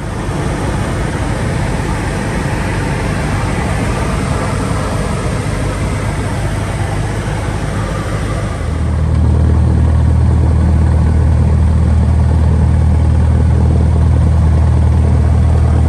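Cockpit noise of a Cessna 172P: its four-cylinder Lycoming engine and propeller running steadily, heard inside the cabin. About nine seconds in, the sound changes abruptly to a heavier low drone with less hiss.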